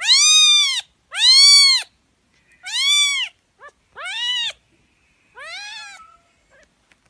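Five short meow-like calls from a pet, each rising then falling in pitch, a second or so apart and growing fainter toward the end.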